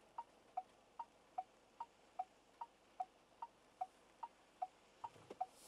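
Turn-signal indicator ticking in the cabin of a SsangYong All New Rexton: an even tick-tock of two alternating pitches, about two and a half clicks a second. A rush of noise starts at the very end.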